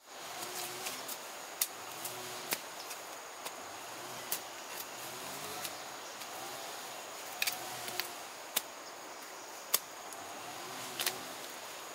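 Outdoor ambience with a steady high insect drone, broken by a dozen or so sharp clicks at irregular intervals.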